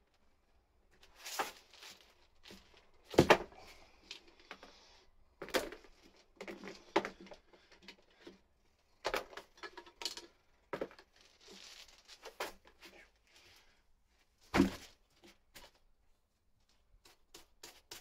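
Tyre being fitted onto a wheel by hand with tyre levers: scattered clinks, knocks and scrapes of the metal lever and rubber bead against the rim, the loudest knocks about three seconds in and near fifteen seconds.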